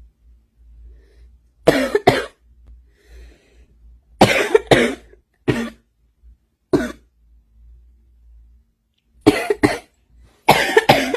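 A woman's smoker's cough: harsh coughs in short fits, some in quick pairs, about eleven in all, with pauses of a second or two between.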